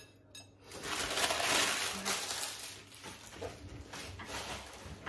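Plastic sheet rustling and crinkling as it is gathered up. The rustling is loudest for about two seconds, starting a second in, and a few light clicks come just before it.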